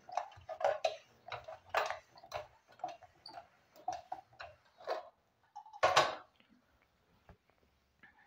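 Heavy old charcoal box iron knocking and clacking irregularly against the table as it is pushed back and forth over a shirt, with a louder clunk about six seconds in; after that only faint rustling of cloth.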